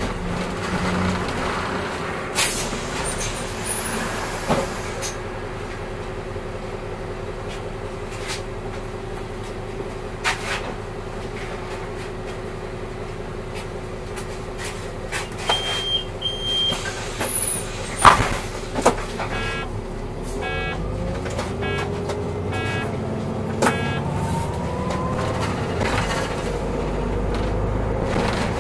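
Solaris Urbino 8.9LE city bus driving, its engine and drivetrain giving a steady hum with a constant whine, mixed with scattered rattles and knocks. About halfway a short high electronic beep sounds. A few seconds later comes a run of evenly spaced ticks, and near the end a whine rises as the bus speeds up.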